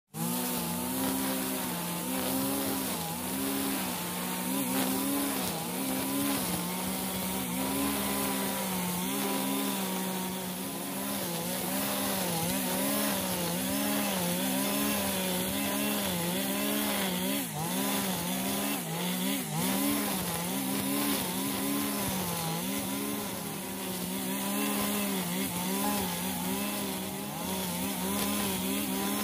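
Brush cutter running continuously while cutting thick, overgrown grass. Its motor pitch dips and recovers over and over as the cutting head bites into the grass and swings clear.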